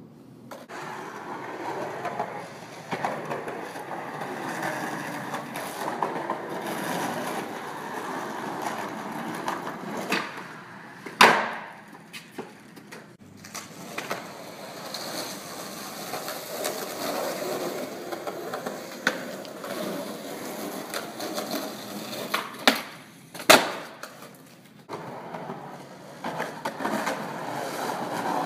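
Skateboard wheels rolling on rough asphalt, broken by a few sharp clacks of the wooden deck hitting the pavement. The loudest clack comes about 11 seconds in, and two more come close together a little after 22 seconds.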